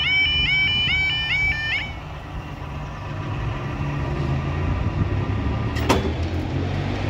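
Level crossing yodel alarm sounding a rapidly repeating rising yelp, cutting off about two seconds in. The barriers then rise over a steady low rumble, with a sharp clunk near the end as the boom reaches upright.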